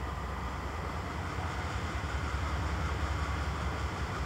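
CSX diesel locomotive's engine running with a steady low rumble as it leads a freight train slowly toward the listener.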